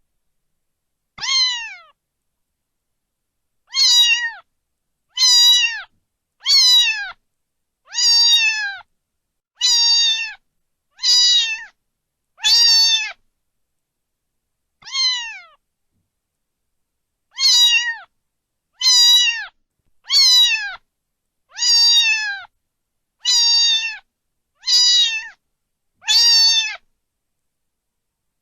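Domestic cat meowing over and over, about sixteen separate meows each falling in pitch at the end, with dead silence between them.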